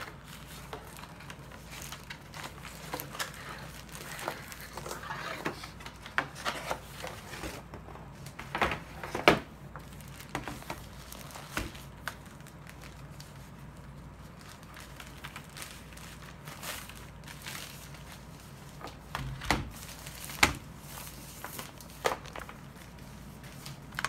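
Plastic bag crinkling and cardboard packaging rustling and shifting as a keyboard is unwrapped, with irregular knocks and clicks from handling, a few of them sharper than the rest.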